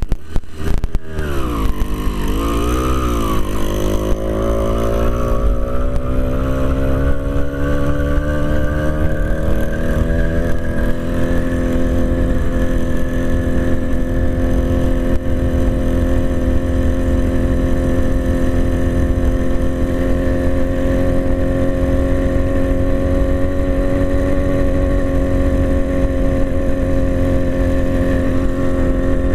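80cc Zeda two-stroke bicycle engine, on a stock high-performance carburettor not yet rejetted, pulling at full throttle: its pitch wavers in the first few seconds, climbs steadily for about ten seconds, then holds level at top speed.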